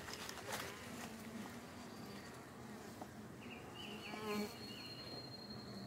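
Honeybees buzzing steadily over an open hive, a faint continuous hum. A brief chirping sound comes about four seconds in.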